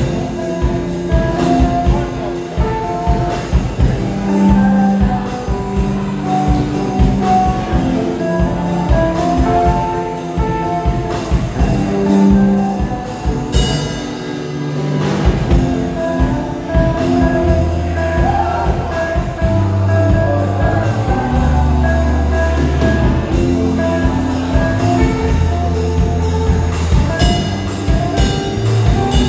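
Live rock band playing an instrumental passage: electric guitar lines over drums and cymbals. A deep bass guitar line comes in a little past halfway.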